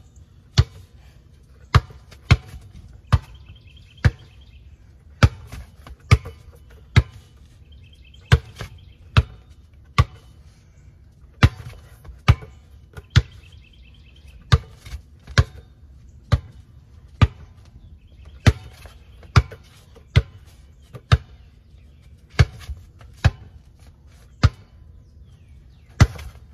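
Basketball being dribbled in a hesitation-dribble drill: sharp single bounces about one to two a second, broken by short pauses where the ball is held.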